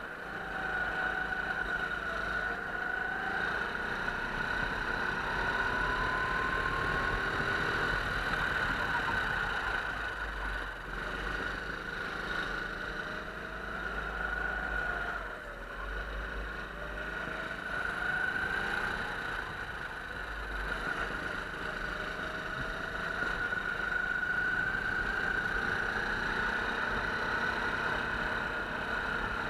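Go-kart engine running under the driver's throttle, its pitch rising and falling again and again through the corners, heard from an onboard camera on the kart.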